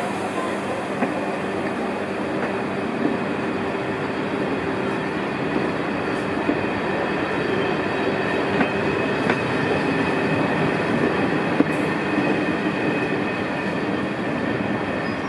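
Old SNCF passenger coaches rolling past and pulling away: a steady rumble of wheels on the rails, with a thin high squeal running through it.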